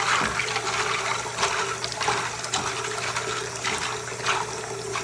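Water running steadily from a tap as plastic keycaps are rinsed under it, with a few short sharp clicks.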